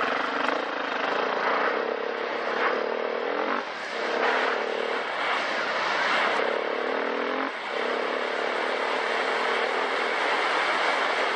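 Dual-sport motorcycle engine running while riding, its note rising and falling with the throttle. The engine note dips briefly twice, about a third and two-thirds of the way through, then picks up again.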